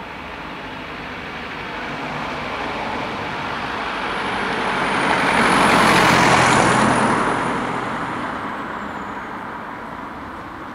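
A car driving past close by, its engine and tyre noise rising to a peak about six seconds in and then fading. A thin high whine runs over it and drops in pitch near the end.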